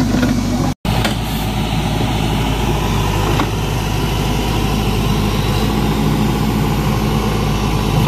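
Case backhoe loader's diesel engine running steadily, broken by a momentary silent gap about a second in.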